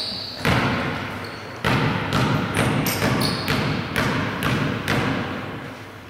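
Basketball bounced repeatedly on the gym floor by a player at the free-throw line, the pre-shot dribble: about ten echoing bounces, roughly two a second, starting about half a second in and stopping about five seconds in.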